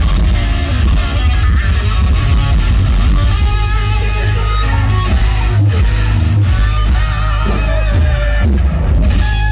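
Live hard rock band playing loud: a hollow-body electric guitar plays lead over bass guitar and drums. The guitar bends and slides its notes in the second half.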